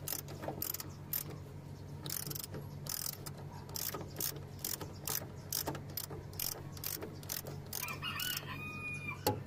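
Socket ratchet wrench clicking in short repeated strokes, about three a second, as it turns a bolt on the underside of the vehicle.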